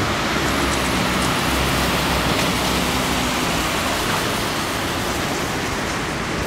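Street traffic on a wet road: a steady hiss of tyres on the wet pavement with a low engine hum from passing vehicles.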